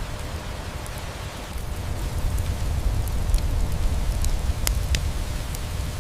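Steady rain hiss with a low rumble beneath it, mixed with a crackling wood fire: scattered sharp pops, the loudest two about five seconds in.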